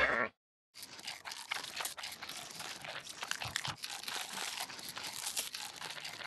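A brief sound at the very start, then after a short gap a dense crinkling, crackling rustle of many small clicks, like paper or plastic being crumpled, from about a second in.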